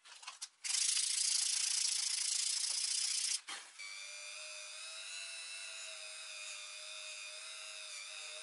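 A loud steady hiss for about three seconds. Then a Powerplus rotary tool starts running with a high steady whine as its buffing wheel is pressed against a bar of car polish wax to load it.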